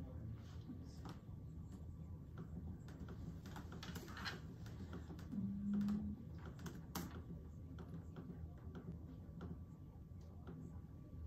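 Several people typing on laptop keyboards, with quick irregular key clicks overlapping. A short low hum about halfway through stands out above the clicking.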